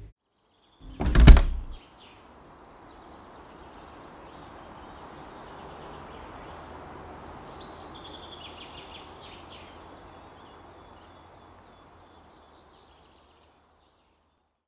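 A door bangs shut once, loudly, about a second in. Then faint outdoor ambience with birds chirping, fading away near the end.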